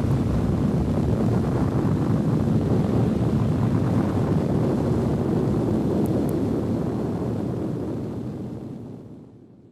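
A loud, steady low rumble with no clear pitch, fading out over the last two seconds or so.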